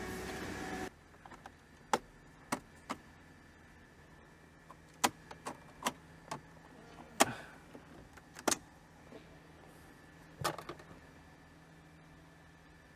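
A steady hum cuts off about a second in. Then come scattered sharp clicks and snaps, about a dozen over several seconds, as the plastic dashboard trim of an Audi A4 is pried and its clips pop loose.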